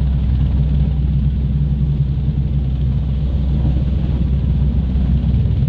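Royal Navy AgustaWestland AW101 Merlin helicopter hovering low: loud, steady, deep rotor and turbine noise from its three turboshaft engines.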